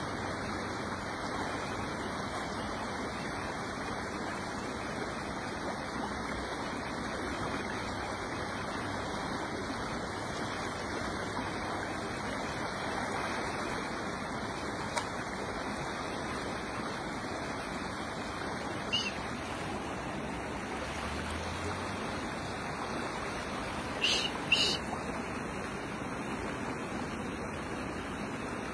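Shallow creek current flowing and rippling steadily. A short sharp click sounds about two-thirds of the way through, and two more come close together near the end.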